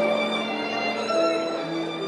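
Solo violin playing a slow melody of long held notes, with lower held notes sounding beneath.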